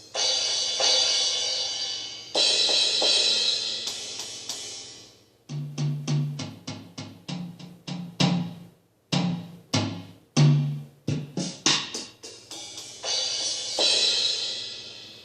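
Drum kit being sound-checked: a few cymbal crashes that ring and fade, then a run of single drum hits with low, pitched thuds, then another cymbal crash near the end.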